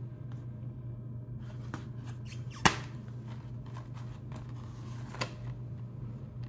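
Plastic Blu-ray case being handled and snapped open: one sharp click about two and a half seconds in, with a second, fainter click a few seconds later and light plastic rustling between. A steady low hum runs underneath.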